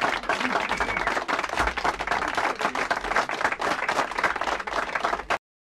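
Audience applause, many hands clapping at once, cutting off suddenly near the end.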